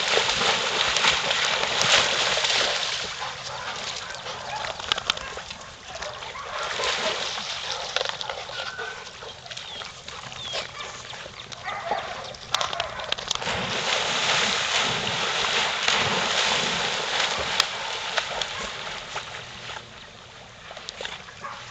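Dogs swimming and splashing in pond water, a continuous sloshing with many small splashes.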